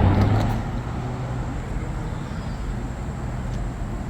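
Steady low outdoor rumble like distant traffic, louder for about the first second and then easing to an even level.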